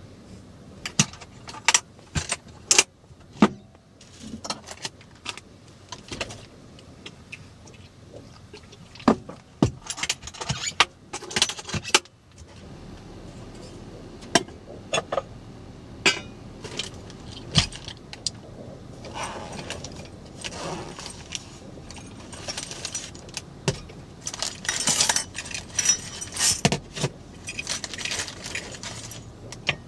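Jangling, clinking and sharp knocks of small hard objects, metal and glass, being handled. A steady low rumble comes in about twelve seconds in.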